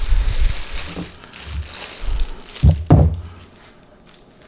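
Clear plastic bag crinkling and rustling as a small boxed speaker is slid out of it, then two dull knocks about a second apart near three seconds in as the unit is handled and set down on the table.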